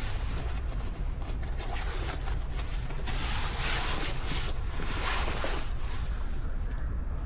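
Sea waves washing onto a rocky shore, the rushing noise swelling twice in the middle, over a steady low rumble of wind on the microphone.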